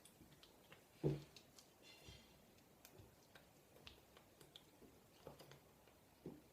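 Near silence with faint scattered clicks and one short, low thump about a second in.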